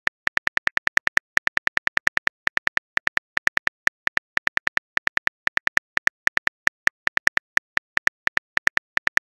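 Keyboard typing sound effect of a phone messaging app: about ten short, high ticks a second, in runs broken by brief pauses, one tick per letter as a text message is typed out.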